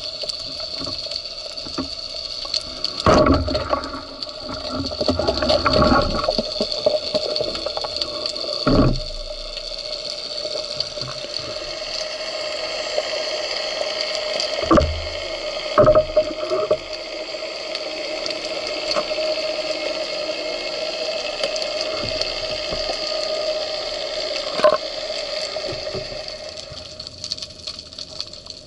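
Water sound picked up by a camera underwater, with a steady hum throughout and a few sharp knocks.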